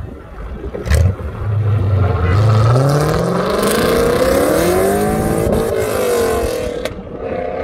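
E39 BMW M5's straight-piped V8 launching and accelerating hard, with a sharp crack about a second in, then the engine note climbing steadily in pitch for several seconds before dropping back as it pulls away.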